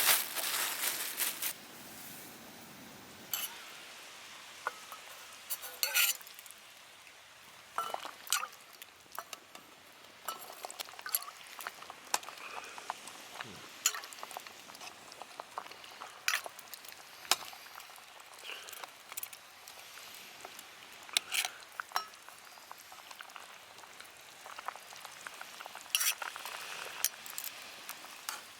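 Food frying in a pan, with a loud burst of sizzling right at the start, then scattered clinks and scrapes of a metal utensil against the pan over a faint steady sizzle.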